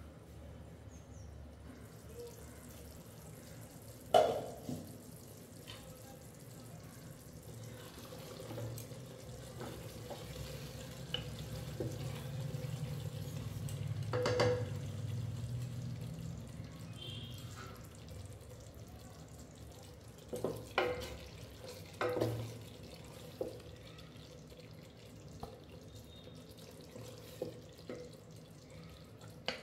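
Kitchen sounds: a few sharp knocks and clinks of utensils against cookware over a steady low hum. A soft rushing, watery noise swells and fades in the middle.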